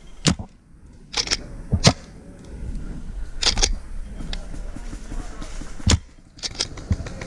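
Paintball markers firing: a string of sharp pops, several in close pairs about a tenth of a second apart, spread over several seconds.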